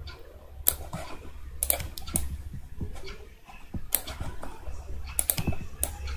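Scattered sharp clicks of a computer mouse and keyboard, about seven in all, some in quick pairs, over a low steady hum.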